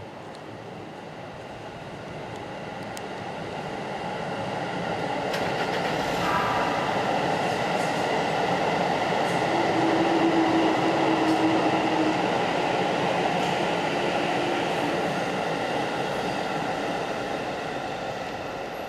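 Keisei Oshiage Line train running past on the newly elevated viaduct track, growing louder to a peak about halfway through and then fading away. A steady hum sounds briefly near the loudest point.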